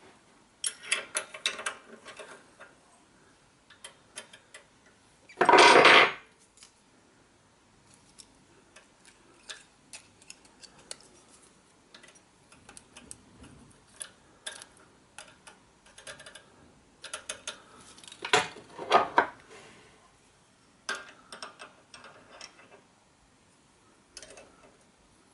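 Steel spanners clicking and clinking on the rocker arm pivot nut and lock nut of a Honda GX engine as the valve clearance is reset. Irregular light metallic ticks, with a louder rush of noise lasting about half a second around six seconds in and busier bouts of clatter later.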